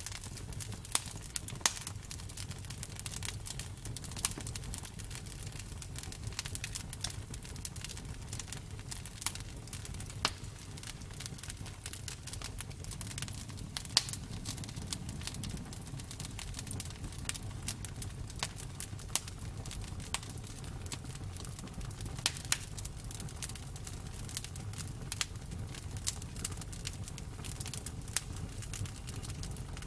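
Campfire crackling: irregular sharp pops and snaps of burning wood, a few louder than the rest, over a low steady rumble.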